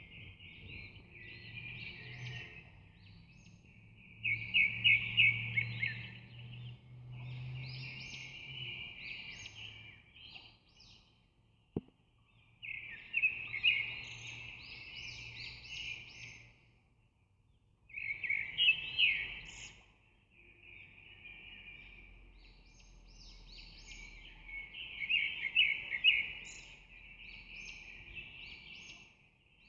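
A bird chirping and twittering in bursts of several seconds, with short pauses between them; a single sharp click about twelve seconds in.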